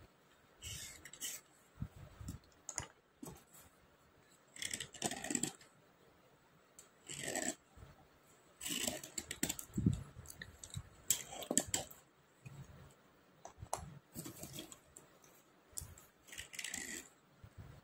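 Dry slate pencils being scraped by hand: about ten short, dry scratching strokes come irregularly, a second or two apart.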